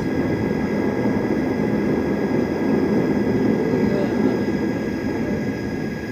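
A low, noisy rumble that swells to a peak about three to four seconds in and then fades away.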